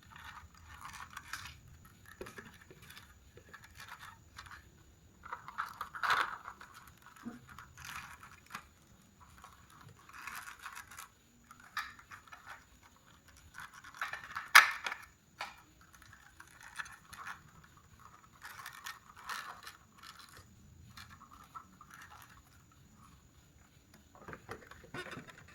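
Plastic light sockets being twisted back into a truck's cargo and third brake light housing and wiring pressed into its clips: intermittent scraping, rustling and small clicks, with one sharp click about halfway through.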